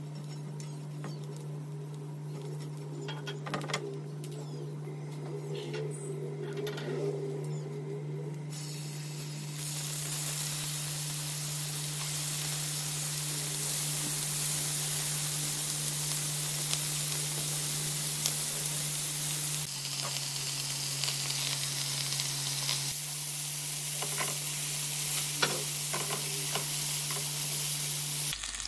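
Chicken tikka skewers sizzling on the heat. A few light clicks and knocks come first, then about a third of the way in a loud, steady sizzle sets in and carries on, with a few more clicks near the end.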